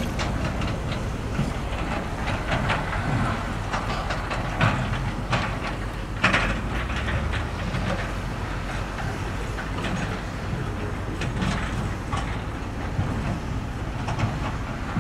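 Heavy diesel earthmoving machinery running steadily, with irregular metallic clanks and rock scrapes throughout, the sharpest about four and a half and six seconds in.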